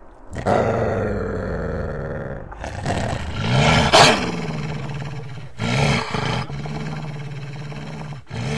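Deep, rough animal roaring in several long bouts, loudest about four seconds in.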